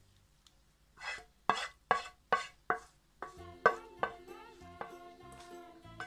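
Wooden spatula scraping and knocking browned minced meat out of a frying pan, five quick strokes in a row about two and a half a second. About three seconds in, background music comes in under more scraping.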